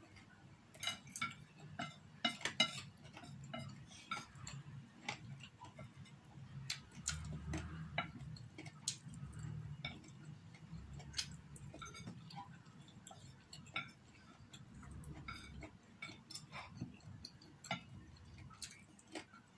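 Eating sounds: chopsticks tapping and scraping irregularly on a ceramic plate while picking up food, with mouth and chewing noises close to the microphone.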